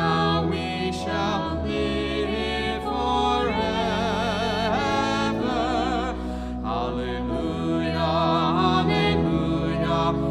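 Slow closing music: a solo melody line with wide vibrato over sustained low notes that change every second or two.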